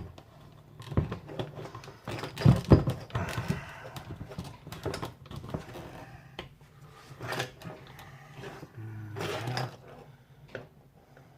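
Irregular knocks, clunks and scrapes of a fuel pump and sending unit assembly being worked and fitted into a car's gas tank, the loudest pair of knocks about two and a half seconds in.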